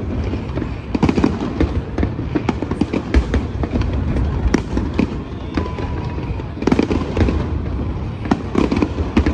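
Aerial fireworks shells bursting in quick succession: a continuous run of bangs and crackles, several a second, with heavier clusters about a second in and again near the end.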